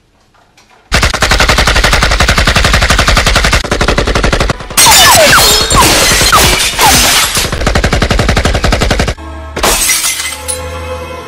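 Loud crackling, rattling sound effect for street lamps being put out with a lighter-like Put-Outer. It starts about a second in, carries a cluster of quick falling zips in the middle, and ends with a short second burst before music comes back.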